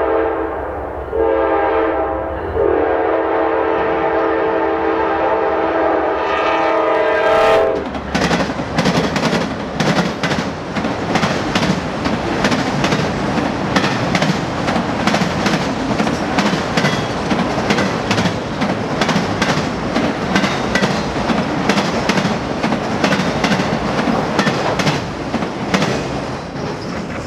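Norfolk Southern freight locomotive's multi-chime horn blowing for a grade crossing in three blasts, the last one long, cutting off about seven and a half seconds in. The train then passes, autorack cars rolling by with a rapid, steady clickety-clack of wheels over rail joints.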